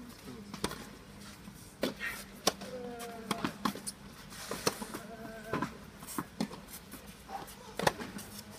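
Tennis ball being hit back and forth with rackets: a run of sharp pops at irregular intervals, some a second or so apart, mixed with ball bounces on the court. A faint steady hum runs underneath.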